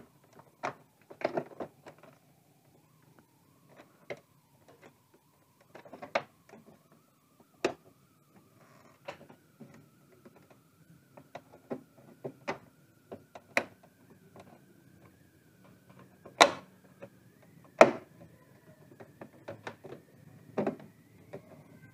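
Irregular plastic clicks and snaps as the snap clips of a plastic part on an LED TV's rear housing are pried loose, the two loudest snaps about 16 and 18 seconds in.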